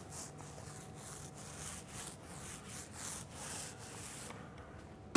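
Trowel scraping Quartz Stone metallic plaster across a wall in quick, repeated overlapping strokes, which stop about four seconds in.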